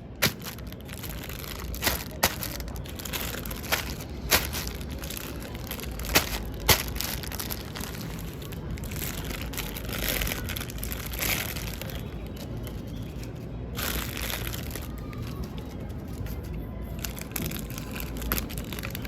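Plastic packaging of mini balloons crinkling and rustling as it is handled, with several sharp cracks in the first seven seconds.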